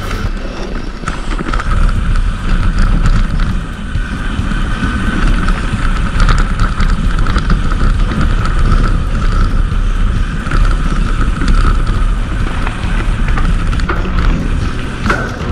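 Steady rumble of a mountain bike riding over a dirt trail, with wind on the microphone.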